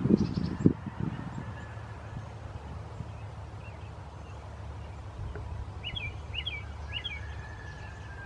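Field ambience with a few low thumps and rustles in the first second, then three short bird calls about half a second apart, six to seven seconds in.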